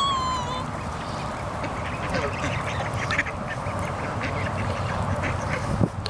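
Mallard ducks quacking, with wind rumbling on the microphone. A child's high voice rises briefly at the very start.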